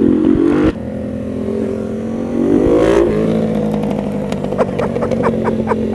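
Ducati V-twin motorcycle engines accelerating: the revs climb, drop sharply at a gear change about a second in, and climb again. They then settle as the throttle eases, with a few exhaust crackles near the end.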